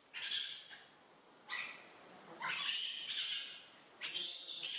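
Baby macaque monkeys giving shrill, high-pitched squealing cries, about four of them with short pauses in between.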